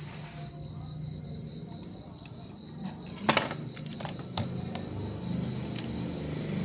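Two sharp knocks, about three and four seconds in, as craft tools are handled and set down on the work table, with a few lighter clicks. Under them runs a steady high-pitched pulsing trill and a low hum.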